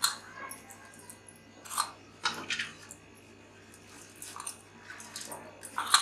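A hand kneading stiff, crumbly chakali dough of rice flour and wheat flour in a stainless steel bowl: several separate, irregular squishing and crunching sounds as the dough is squeezed and pressed together.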